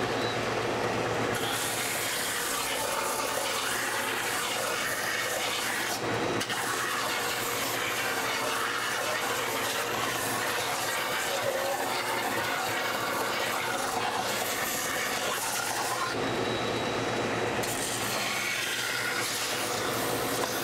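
Benchtop belt sander running with a steady motor hum while a glued-up wooden bandsaw box is pressed against the belt, giving a gritty sanding hiss. The hiss starts about a second and a half in and drops away briefly twice, around six seconds and again around sixteen seconds, as the piece is lifted off the belt.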